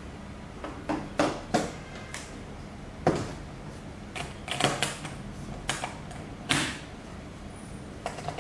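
Aluminium flight-style charging case being handled: about a dozen sharp clicks and knocks as the lid is closed and the case is moved about on the table.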